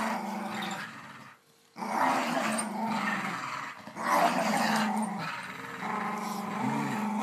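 Two dogs growling in play during a tug of war, in long drawn-out growls with a short break about a second and a half in.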